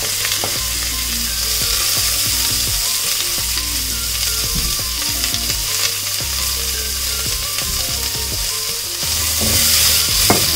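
Chopped red onions and green chillies sizzling as they hit hot ghee in an aluminium pressure cooker, with a spoon and then a spatula scraping and clicking against the pot as they are tipped in and stirred. The sizzle grows louder about nine and a half seconds in.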